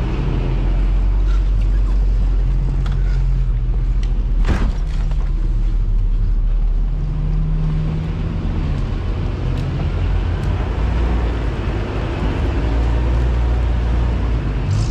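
Off-road 4x4 engine running at low speed while crawling a rough forest trail, its note rising briefly about seven seconds in and dropping back. One sharp knock about four and a half seconds in.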